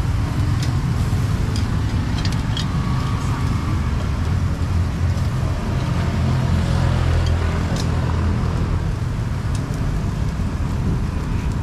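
Steady street traffic noise, motor vehicle engines running in a low rumble, with scattered light clicks and clatter.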